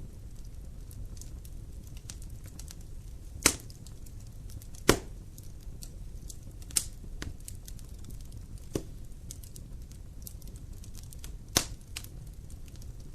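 Fireplace fire crackling with small ticks over a low steady rumble, broken by five sharp, louder pops spread through it, the loudest about five seconds in.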